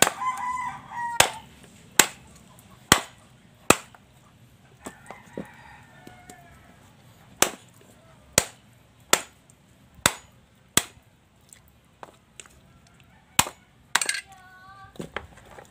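A heavy cleaver-like knife chops through raw pork knuckle into a wooden stump block: about a dozen sharp chops in runs of roughly one a second. A rooster crows at the start, and fowl call again near the end.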